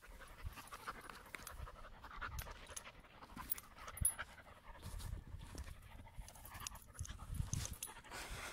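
A puppy and a larger dog play-fighting on grass: faint panting and soft scuffling, with scattered light clicks and low thumps and no barking.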